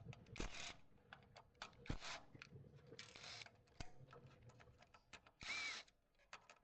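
Faint scattered clicks and a few short scrapes from hands and tools working a bearing out of a cleaning-robot roller. Near the end, one scrape carries a brief squeak.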